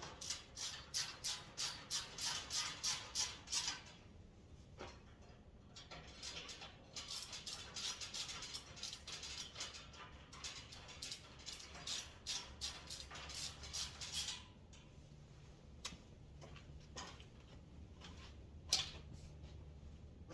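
Hand ratchet clicking in quick runs as bolts on a metal tool rack are tightened down, in two long stretches, then a few scattered clicks and a sharp knock near the end.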